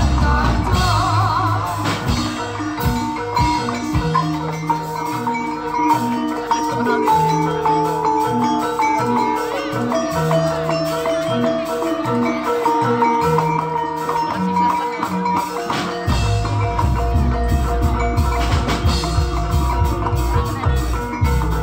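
Javanese gamelan music for a jaranan dance: bronze metallophones play a repeating melody over drum strokes, with deep low notes from gongs swelling in about two-thirds of the way through.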